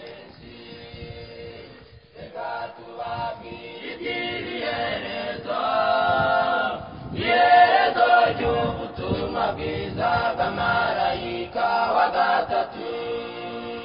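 Choir singing: voices together, quiet at first and louder from about two seconds in.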